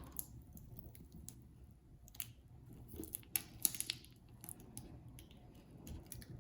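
Faint scraping and small sharp clicks of repair tools prying an iPhone 8 battery loose from its adhesive, with a few sharper clicks about two and three and a half seconds in.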